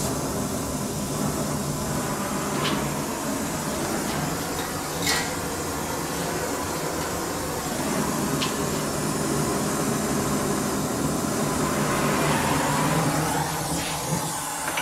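Oxy-fuel torch flame hissing steadily as it heats an aluminum sleeve fixture so the metal swells and releases the cylinder sleeve, with a few light clicks.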